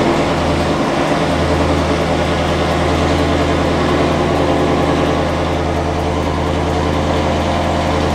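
Ford Mustang's 5.0 Coyote V8 idling steadily just after a cold start, heard from inside the cabin.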